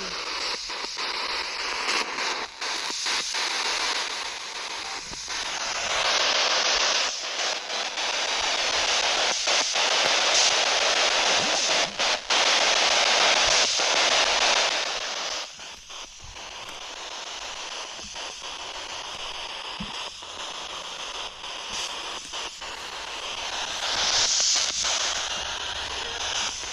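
Spirit box radio static: a steady hiss broken by frequent short cuts as it sweeps, louder through the middle and dropping off about sixteen seconds in.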